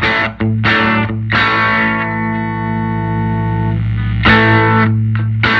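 Electric guitar (Telecaster bridge pickup) strummed through a 1968 Fender Vibrolux tube amp on its bright channel. A few quick chord strums, then one chord left ringing for about two seconds, then more strums near the end.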